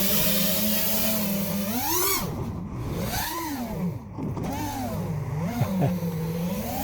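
FPV quadcopter's brushless motors whining, the pitch swooping up and down several times as the throttle is punched and chopped in flight.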